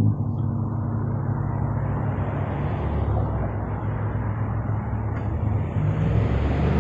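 Steady low vehicle engine hum with road traffic noise, heard from inside a car; the traffic noise swells near the end.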